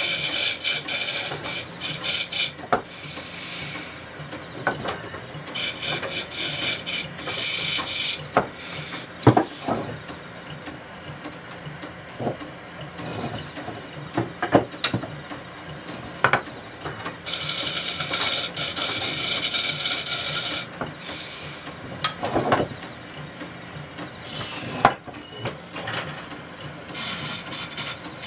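Wood lathe turning a horse chestnut (tochi) bowl: a long steel turning tool cuts into the spinning wood in several long stretches of high hiss. Between cuts come sharp knocks of steel tools being handled, over a low steady hum.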